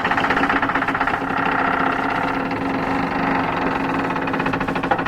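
A door creaking slowly open: one long, steady creak with a fast rattling pulse, lasting about five seconds.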